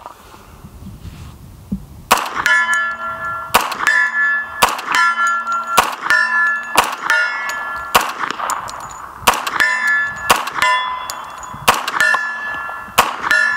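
A .45 ACP semi-automatic carbine fired in a rapid string of shots, about one to two a second, starting about two seconds in. Nearly every shot is followed by the clang of a steel plate target being hit and ringing on.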